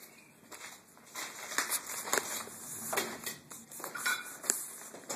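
Footsteps crunching over broken plaster and rubble, irregular crunches with sharp clicks of debris, starting about a second in.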